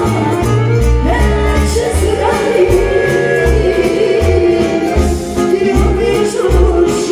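Loud live band music with a singer's voice over a pulsing bass beat.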